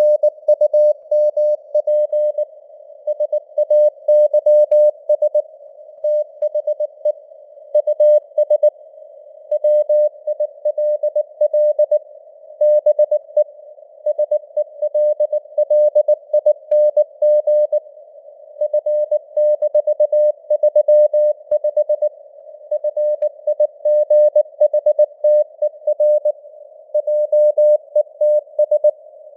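Morse code (CW) keyed as a single mid-pitched tone at 19 words per minute, dots and dashes in rapid succession, over a narrow band of simulated radio receiver hiss, with the signal fading a little in strength (QSB).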